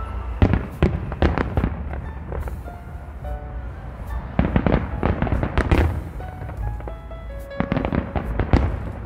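Aerial firework shells bursting in rapid volleys of sharp bangs, in three clusters: about a second in, around five seconds in, and near eight seconds. Music plays underneath.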